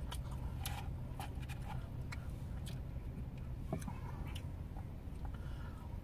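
Quiet eating sounds: scattered soft clicks of chopsticks and chewing, over a steady low hum in a car cabin.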